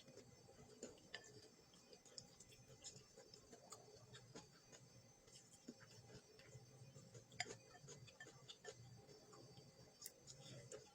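Faint, irregular clicks and small crunches of someone eating stir-fried pickled mustard greens with roasted peanuts.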